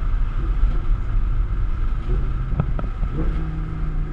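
Audi R8 engine and road noise heard inside the cabin while driving, a steady low rumble. About two seconds in, the engine settles into an even drone, with a couple of brief knocks around the same time.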